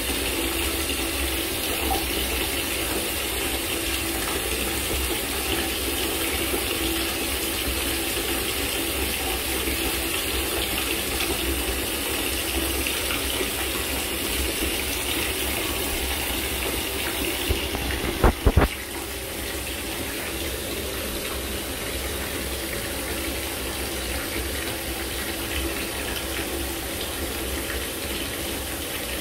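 Water running steadily into standing water, like a tap filling a tub. A few sharp knocks come about eighteen seconds in, and the running is a little quieter after them.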